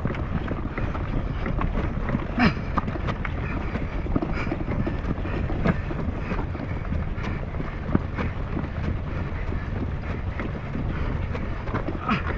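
Footsteps and the tyres of a Royal Enfield Himalayan crunching over a dirt road as the motorcycle is pushed uphill by hand with its engine dead. Under a steady low rumble there are irregular crunches and knocks, a few of them louder.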